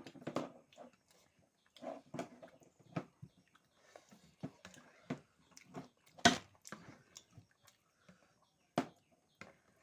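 Close-up eating sounds: chewing and mouth smacks on chicken momo, with scattered short sharp clicks, the sharpest about six and nine seconds in.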